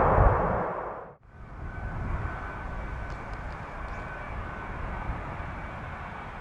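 Jet airliner engine noise. Loud jet noise dies away to almost nothing about a second in, then comes back as a steadier, quieter jet rumble with a thin high whine.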